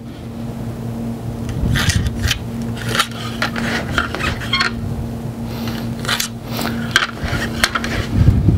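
Marking pencil scratching quadrant lines onto the shell of a bowling ball, in a series of short irregular strokes, with a plastic layout template being shifted against the ball. A steady low hum sits underneath.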